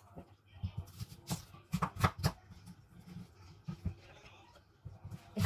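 Scattered knocks and clicks of a kitchen knife cutting garlic and onion on a wooden cutting board, several in a cluster between one and two and a half seconds in and one more near four seconds, with quieter peeling and handling sounds in between.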